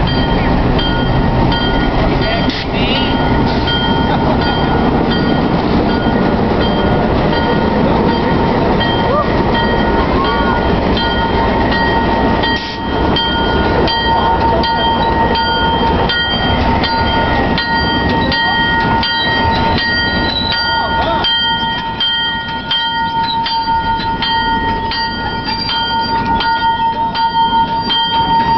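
A train pulling in alongside the platform: wheels clattering and knocking over the rails in a steady run of clanks, under a steady high-pitched tone held throughout.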